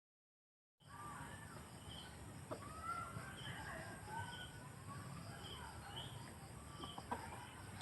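Birds calling outdoors, starting after a second of silence: whistled calls sliding up and down, and a short high chirp repeated about once every second, over a steady faint background hiss.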